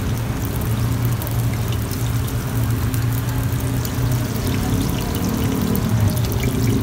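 Kebab flatbread dough sizzling steadily as it fries in hot oil, with a low steady hum underneath.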